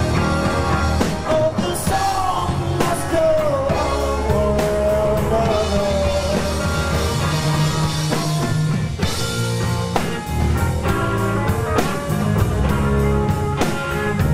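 A live rock band playing two electric guitars, bass guitar and a drum kit at full volume, with steady drum hits. A lead line slides and bends in pitch through the first half.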